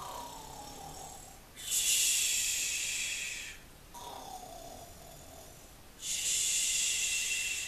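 Cartoon-style snoring of a sleeping pig: a thin whistle falling in pitch on the breath out, then a louder, hissing snore on the breath in, twice, about every four seconds.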